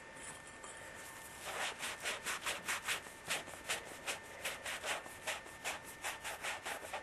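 Emery cloth scrubbed back and forth around the end of a 3/4-inch copper pipe, a quick rhythmic rasping of about four to five strokes a second that starts about a second and a half in. The pipe end is being cleaned to bare copper before flux and solder.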